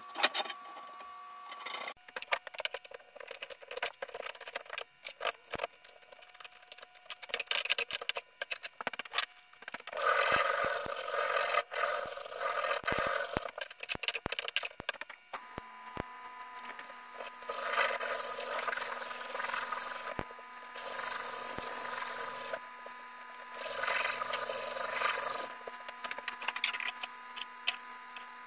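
Hand work on a wooden axe handle clamped in a bench vise: scattered clicks and knocks of handling, then long stretches of scraping strokes on the wood, like rasping or sanding, from about a third of the way in until near the end.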